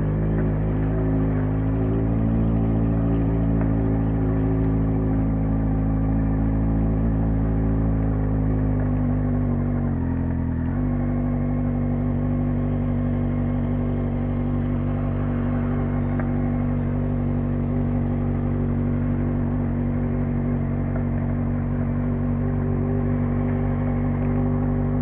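Yamaha XJ6 motorcycle's 600 cc inline-four engine running loud and steady, its note dipping briefly about ten seconds in before settling again.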